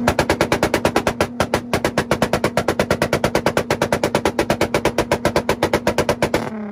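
Car engine held on a two-step launch limiter: a steady high rev chopped by rapid, evenly spaced pops and bangs at about eight a second. The engine is let off near the end and the revs fall away.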